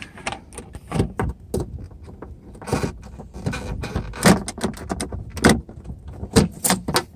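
The inner door plate of a 2009 Jeep Wrangler rear door being wiggled and worked off its retaining clips: irregular clicks, knocks and rattles as it shifts against the door shell, with several sharper knocks spread through.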